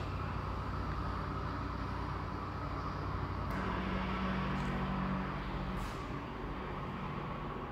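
Steady background hum and hiss, like distant traffic or room tone. It changes abruptly about three and a half seconds in, and a low steady hum is heard for a second or two after the change.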